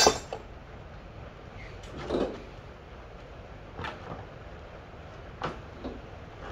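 Workshop handling noises: a sharp metallic clank right at the start, a duller rattling clatter about two seconds in, then a few lighter knocks and clicks, as hand tools and engine parts are picked up and set down.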